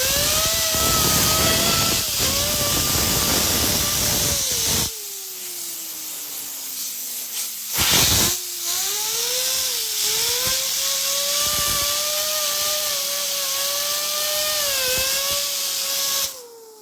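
Fidget spinner driven by a compressed-air gun at 95 PSI. Its whine rises in pitch under the loud hiss of the air blast, then falls steadily as it coasts when the air stops about five seconds in. A short blast about eight seconds in is followed by a long one that spins it back up to a steady, slightly wavering whine, and near the end the air cuts off and the whine starts falling again.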